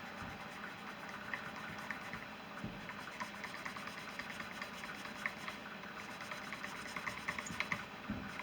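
An antique door closer being handled and turned over in the hands: faint, scattered small clicks and rubbing.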